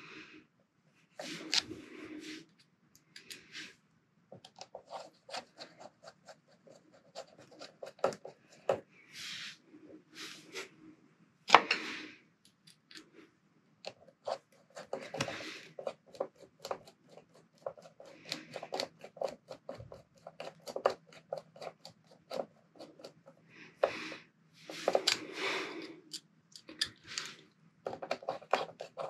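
Handwork on small metal parts: irregular clicks, taps and short scrapes of tools and tiny grub screws as the screws are fitted into the pinion pulley on an RC brushless motor's shaft. Several louder scraping bursts stand out among the clicks.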